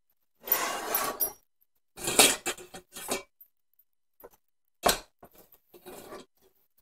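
An iron elevated dog bowl stand being slid up while it is adjusted: the metal frame scraping and its stainless steel bowls rattling, in several clattering bursts, with a sharp knock about five seconds in.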